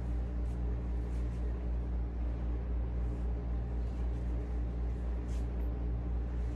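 Steady low hum of a machine running, one constant low pitch with overtones that pulses slightly, with a faint brief high rustle about five seconds in.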